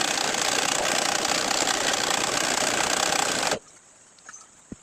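Sewing machine running steadily while stitching, stopping suddenly about three and a half seconds in, followed by a few faint clicks.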